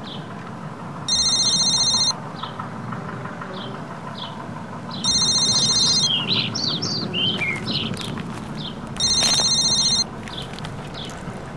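A phone ringing with a high electronic ring: three rings about four seconds apart, each about a second long. Birds chirp throughout.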